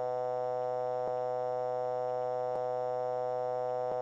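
Simulated Airbus A330 cockpit aural alert: a steady electronic chord held without a break, with a faint click about every second and a half.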